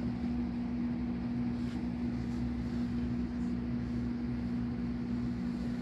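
Steady low mechanical hum with one strong unchanging tone over a low rumble, the running drone of a household machine such as room air conditioning.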